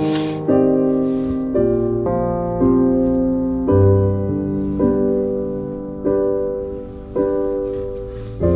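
Background music: a piano playing slow, gentle chords, a new chord about once a second, each fading out.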